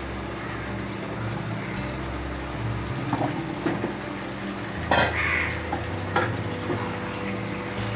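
Raw potato pieces dropped into a kadai of frying chicken masala, with a few knocks against the pan and a light sizzle over a steady low hum. A crow caws about five seconds in.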